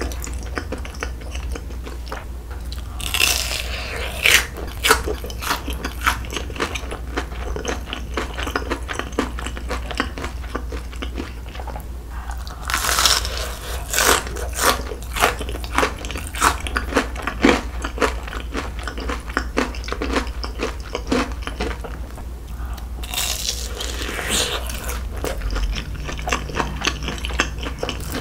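Close-miked eating sounds from biting and chewing a sauced rice-cake skewer. There are three spells of dense, sharp bite clicks, about 3, 13 and 23 seconds in, with softer chewing clicks between them. A steady low hum runs underneath.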